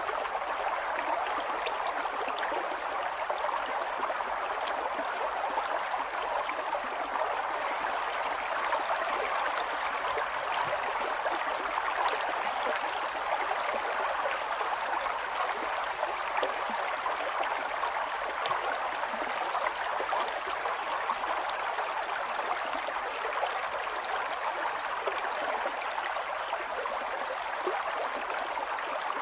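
Water flowing steadily, an even rushing with small splashes all through and no change in level.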